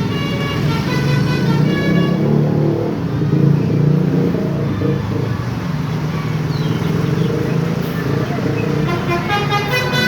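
Indonesian 'telolet' bus horns, multi-tone musical air horns, sounding quick stepped melodic notes for the first couple of seconds and again from about nine seconds in, with a heavy vehicle engine running underneath.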